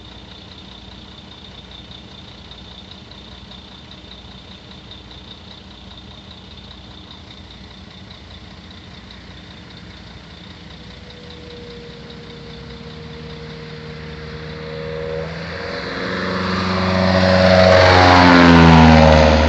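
Cessna light aircraft making a low pass, its piston engine and propeller growing louder from about halfway through and loudest near the end as it passes close overhead, the engine note dropping in pitch as it goes by.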